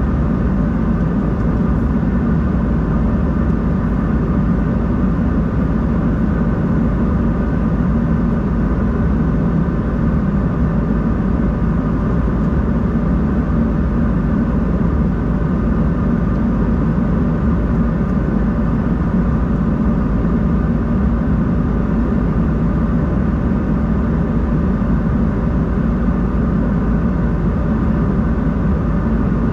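Steady cabin noise of an Embraer 190-E2 airliner's Pratt & Whitney PW1900G geared turbofan engines heard from inside the passenger cabin: an even rumble and airflow hiss with a few faint steady tones, unchanging throughout.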